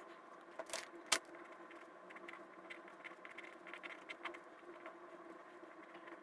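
Scattered light clicks and taps from working at a computer, over a steady hum. Two sharper clicks come about a second in, with fainter ticks later.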